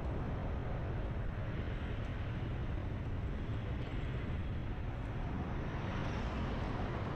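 Steady street traffic noise with a constant low rumble, heard from a vehicle moving along a busy city road.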